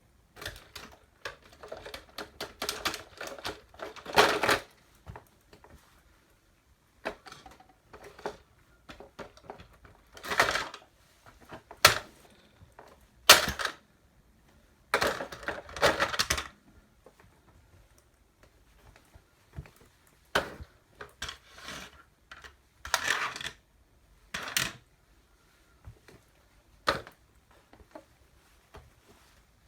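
Toy truck being crushed under boots: clusters of sharp cracking and crunching with pauses between them, the loudest bursts about 4, 10, 13 and 16 seconds in.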